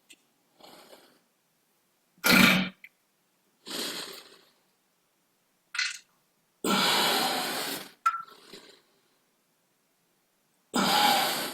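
Human farts: about half a dozen separate bursts of differing length, some short and faint, the longest about a second and a half, coming well past the middle of the stretch.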